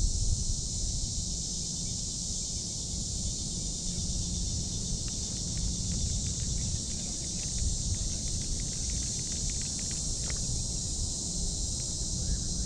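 Outdoor ambience: a steady high insect chorus over a low wind rumble on the microphone, with faint scattered clicks in the middle.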